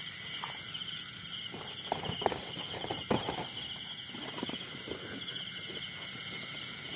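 Crickets trilling in a steady pre-dawn chorus, one pulsing about four times a second, with scattered rustles and footfalls through grass and brush.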